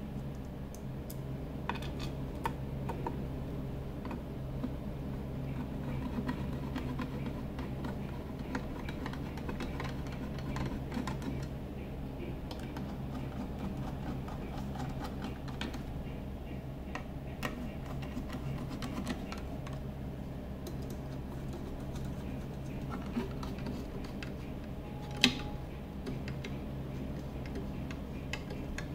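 Light, irregular clicks and ticks of a hand screwdriver turning small screws into the corners of a metal chassis top plate, with one sharper click near the end. A steady low hum runs underneath.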